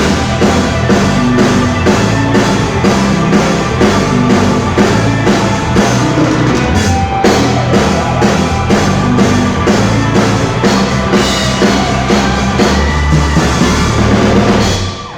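Rock band playing live, with a drum kit keeping a steady beat under guitars and bass; the music dies away right at the end.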